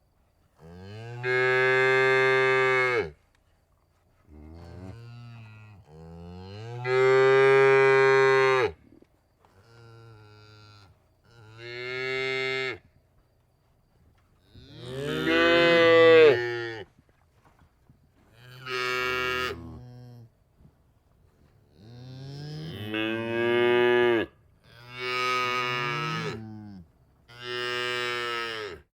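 Cows mooing: a string of about ten separate moos, each lasting one to three seconds, with short silences between them; the loudest comes about halfway through.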